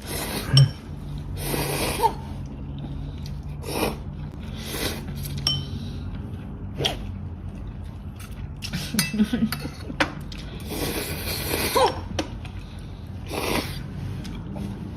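Eating at a table: several long, noisy slurps with light clinks of cutlery against dishes.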